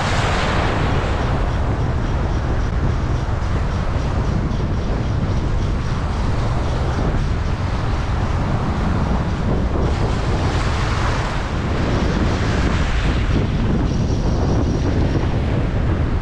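Strong wind buffeting the microphone over choppy sea waves washing in, a steady, loud noise.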